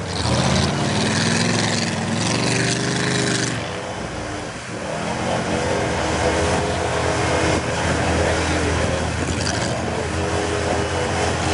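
Pickup truck engine revving hard while stuck in deep mud, its rear wheels spinning and spraying mud. The revs climb over the first few seconds, drop back about four seconds in, then rise again and hold high.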